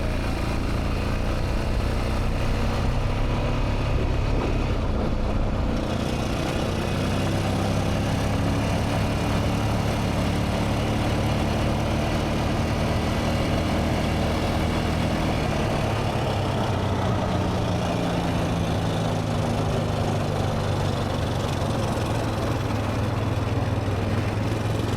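Honda Rincon 650 ATV's single-cylinder engine running through a ride, its pitch rising and falling with throttle and speed.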